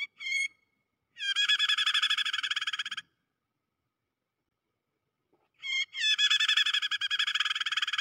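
Prenjak (a small prinia-type warbler) giving the harsh, rapid chattering distress call of a trapped bird: a couple of short sharp notes, then a fast scolding trill of about two seconds, and after a pause a second long trill.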